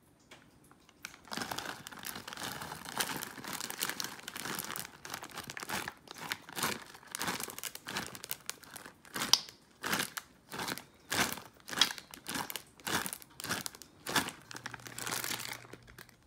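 Plastic bag of milk chocolate chips crinkling as it is handled. There are a few seconds of steady rustling, then a run of short separate crinkles, about two a second, as the bag is shaken over the bowl.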